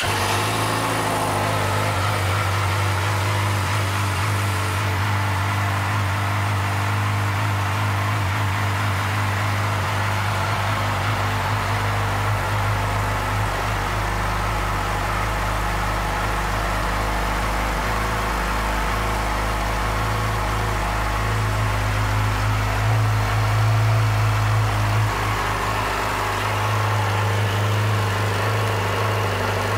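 2008 Yamaha YZF-R6's inline-four engine idling steadily. It runs a little louder for a few seconds past the middle, then settles back.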